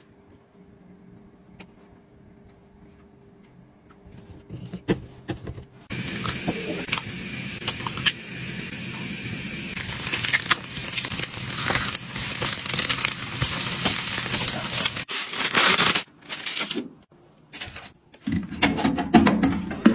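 Eggs frying in a four-cup egg pan: a steady sizzle with scattered crackles that comes in suddenly after a few seconds of faint clicks, then breaks off near the end.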